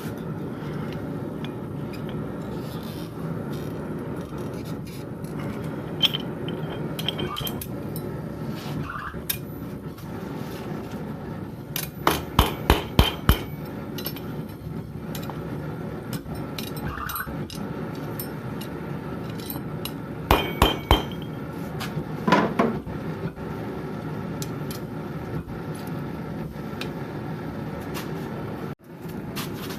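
Blacksmith's hammer striking steel on an anvil in short runs of quick, ringing blows: about five strikes some twelve seconds in, then three more around twenty seconds and a couple just after, over a steady low rumble.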